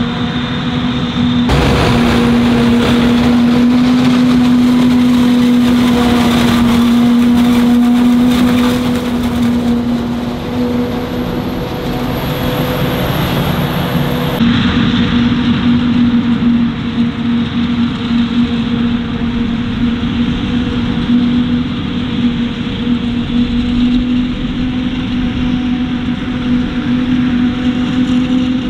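Heavy harvest machinery, forage harvesters and tractors, running steadily under load with a constant droning hum. The sound changes abruptly twice, about a second and a half in and again about halfway through.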